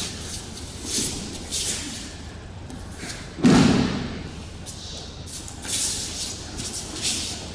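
A body landing on a padded mat in a breakfall after an aikido throw: one loud thud about three and a half seconds in. Around it comes the brushing rustle of cotton uniforms and hakama and bare feet moving on the mat.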